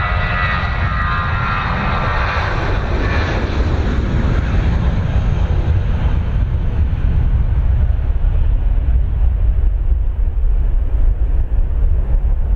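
Airbus A320-232 jet airliner taking off on its IAE V2500 turbofan engines at takeoff thrust. A whining tone rides over the roar for the first few seconds, then gives way to a loud, deep rumble as the jet lifts off and climbs away.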